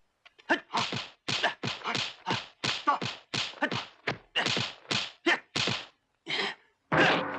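Kung-fu film fight sound effects: a rapid series of punch and strike hits, some with a swish, about three a second, with a short pause near the end.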